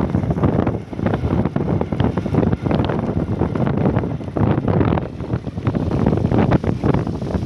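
Wind buffeting the microphone: a loud, uneven low rumble that flutters and gusts throughout.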